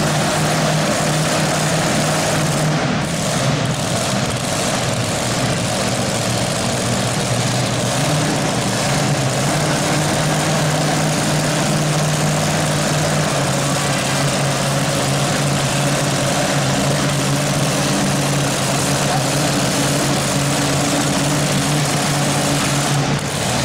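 Loud engine of a pulling truck running steadily at an even pitch, with no revving.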